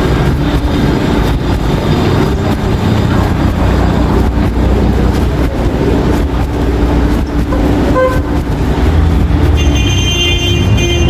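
Busy city street traffic: car, truck and motorcycle engines and tyres in a steady rumble. A short car-horn toot sounds about eight seconds in, and a high, shrill tone comes in near the end.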